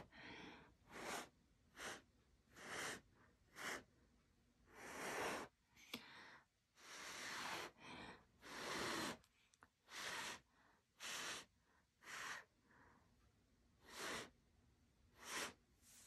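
A person blowing in short puffs of breath by mouth across wet poured acrylic paint, about fourteen hissing puffs of uneven length with quiet gaps between, pushing the paint to form a crashing wave's edge.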